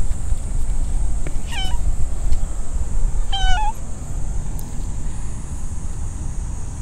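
Silver tabby cat meowing twice, two short calls about two seconds apart.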